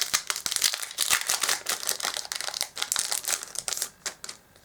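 Foil booster-pack wrappers and trading cards being handled: a dense run of crinkling and small clicks and flicks that stops about four seconds in.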